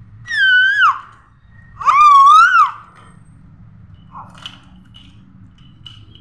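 A baby squealing twice, two long high-pitched squeals about a second apart, the second one wavering, followed by a few faint small clicks.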